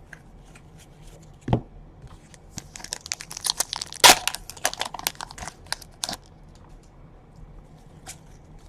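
Plastic trading-card pack wrapper being torn open and crinkled by hand: a thump about a second and a half in, then a run of crackling and tearing with one sharp snap, dying away about six seconds in.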